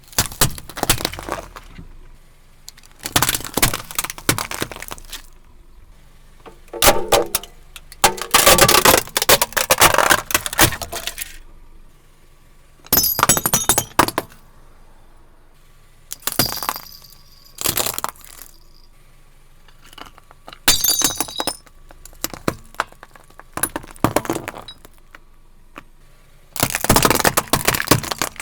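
Objects being crushed under a car tyre: about ten separate bursts of cracking, crunching and breaking, each a second or two long, with quieter gaps between them. Some bursts carry a bright, clinking ring, like brittle plastic or glass shattering.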